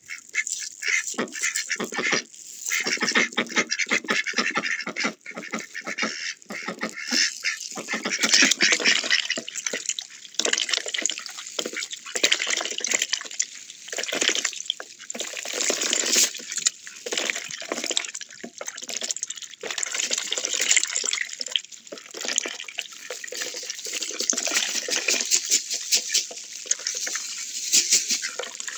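Mallard ducks dabbling in a water bowl: a rapid, irregular wet clatter and splashing of bills working the water, mixed with duck quacks.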